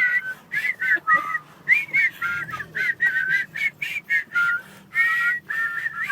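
A rapid string of short high whistled notes, about three or four a second, each bending up and down in pitch.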